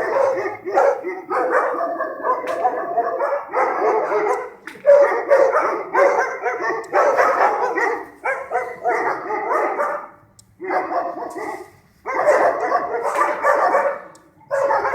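A pack of stray dogs barking together, many overlapping barks in a continuous din that breaks off briefly a few times.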